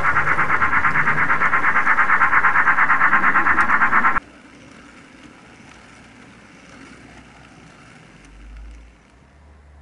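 Electronic steam-locomotive chuffing from the built-in sound unit of an HO-scale DC Thomas model train: rapid, even chuffs. It cuts off suddenly about four seconds in, leaving a faint hiss.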